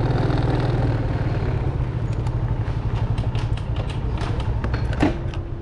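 Motorcycle engine running steadily with a fine, rapid low pulsing, and scattered light clicks and rattles over it.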